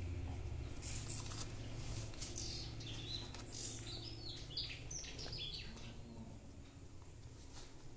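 Birds chirping in the background, with a cluster of short high chirps around the middle, over a low steady hum.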